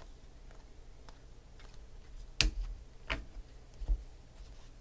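Stiff trading cards being handled: faint soft ticks as they are shuffled, then three sharp clicks in the second half, the first the loudest, as cards are tapped and the stack is set down on the table.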